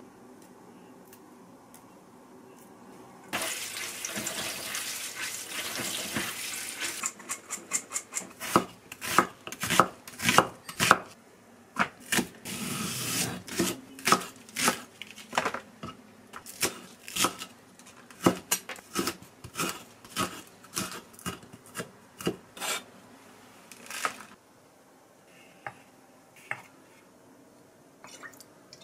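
A tap runs into the sink for a few seconds. Then a knife chops a large green onion on a wooden cutting board: sharp, separate strikes, one or two a second, for about fifteen seconds, then it stops.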